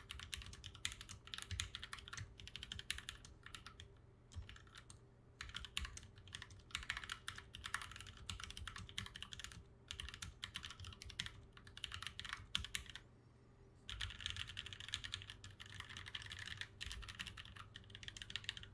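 Typing on a custom-built mechanical keyboard with a GK61 PCB in an aluminium case, fitted with lubed Feker milky green linear switches: quick runs of keystrokes with short pauses, the longest about 13 seconds in.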